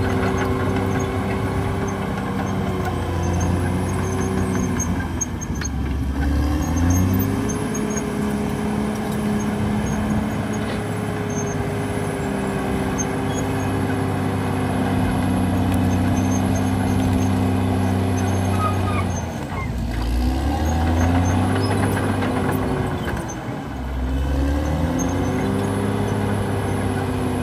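Caterpillar D6R XL crawler bulldozer's diesel engine running under load as it works the hillside cut. The engine note is steady but dips and rises again about six seconds in and twice more near the end.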